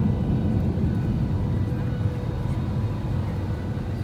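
Steady cabin noise of an airliner in flight, descending low over farmland: a low rumble of engines and airflow with a few faint steady whining tones above it.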